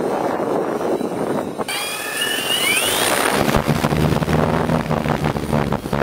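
Wind buffeting the microphone, then, about two seconds in, a high whine rising in pitch as the Rhea 160 hexacopter's motors spin up. It is followed by the steady low hum of its large propellers turning.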